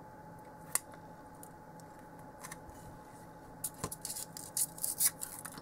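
Small clicks and rustles of electronic components and a circuit board being handled on a workbench: one sharp click under a second in, then a quick flurry of light clicks near the end. A faint steady hum runs underneath.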